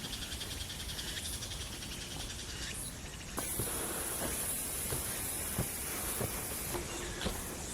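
Forest ambience of insects chirring, at first in a fast pulsing rhythm, then switching abruptly a little over three seconds in to a steady high-pitched buzz. Scattered footsteps and soft thuds come through in the second half.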